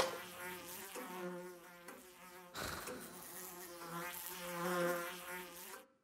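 A wavering buzzing drone that swells twice, with a short rush of noise in the middle, and cuts off suddenly near the end.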